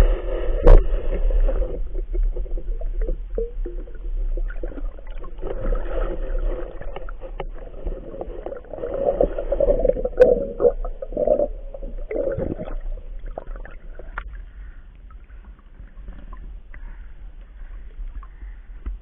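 Underwater sound through an action camera's waterproof housing: a muffled low rumble and gurgling with scattered clicks and knocks, one of them loud under a second in, as a speared fish is handled on a spear shaft. It grows quieter in the last few seconds.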